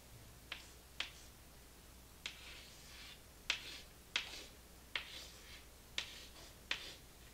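Chalk on a chalkboard while figures are written: a string of sharp taps about one a second, several trailed by short scratching strokes.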